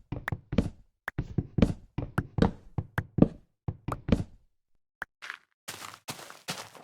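A run of irregular knocks and thuds, a few a second, broken by short pauses, the longest just before five seconds in.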